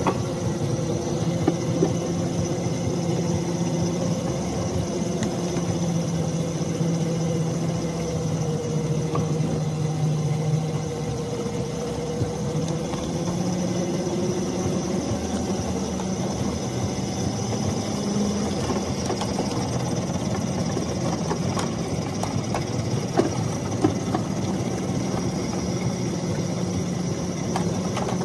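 Engine of a small rail vehicle running steadily as it carries the rider along the track, its pitch wavering a little, with a few sharp clicks early on and again near the end.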